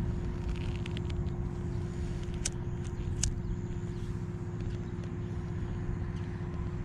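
Steady low rumbling noise with a faint steady hum, and two sharp clicks a little under a second apart near the middle.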